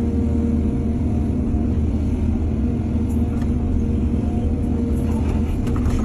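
Heavy diesel engine of an excavator running steadily under a low rumble, with a few faint clicks near the end.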